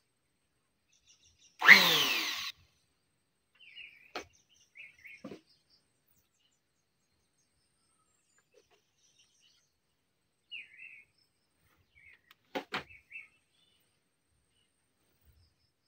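A few sharp plastic clicks and knocks as the electric planer is handled and its dust bag fitted, with faint bird chirps. A short loud burst with falling pitch comes about two seconds in and cuts off sharply.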